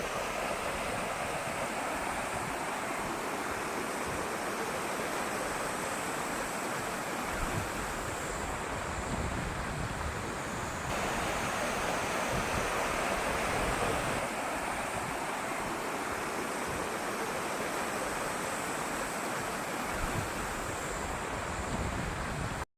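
A mountain valley stream rushing steadily over rocks, with wind now and then rumbling on the microphone.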